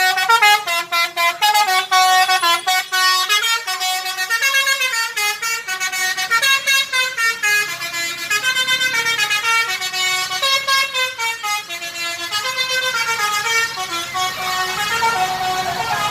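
Multi-tone 'basuri' telolet horn on a bus playing a tune: a fast run of short horn notes stepping up and down in pitch without a break.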